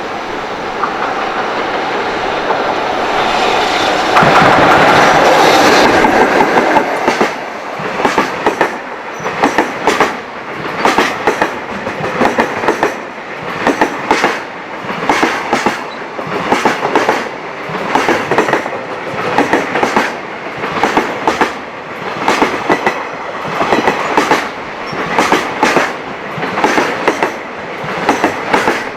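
A long freight train passing close by. A loud rush builds to a peak about five seconds in as the head of the train goes by. Then the wagon wheels clatter over the rail joints in a steady rhythm of grouped clacks, about one group every 1.2 seconds.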